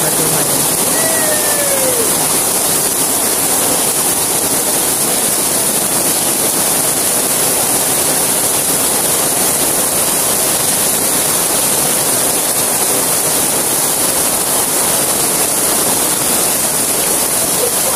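Heavy rain pouring down onto the wet street and market stalls: a dense, steady hiss that does not let up.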